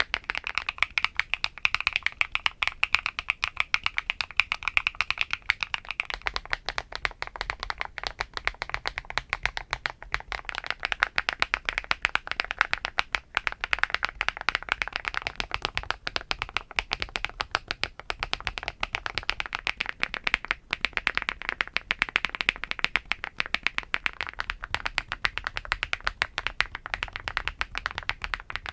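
Continuous fast typing on a mechanical keyboard fitted with HMX Macchiato switches, a dense run of keystroke clicks. The tone of the keystrokes shifts a few times as the board changes from an aluminum housing to PC, POM/PP and FR4 plates.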